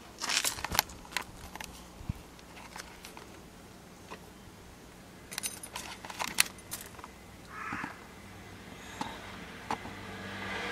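Two bouts of small metallic clicking and jangling, like keys or small metal parts being handled: one right at the start, another about five to seven seconds in. A low hum swells near the end.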